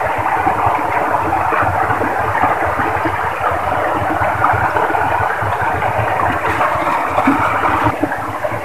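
Small stream's white water tumbling over rocks in a steady, loud rush, with splashing from hands working in the current. The rush eases slightly near the end.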